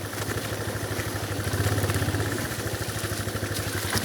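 Yamaha motorcycle engine running steadily at low revs with an even pulsing beat, picking up slightly about one and a half seconds in.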